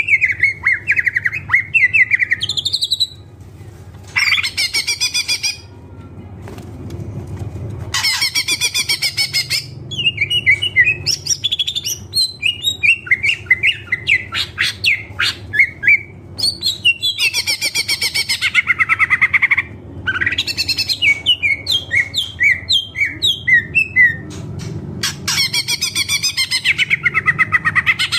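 Green leafbird (cucak ijo) singing a long, varied song of quick chirps, trills and rattling phrases, broken by short pauses, with phrases of other birds' songs worked in. A steady low hum runs underneath.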